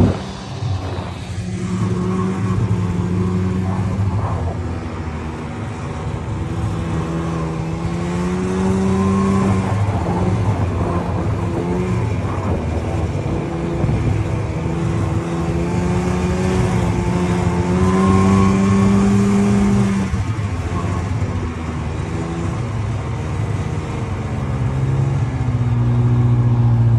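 Snowmobile engine running while riding over snow, its pitch rising and falling several times as the throttle opens and eases, with a steady hiss over the engine.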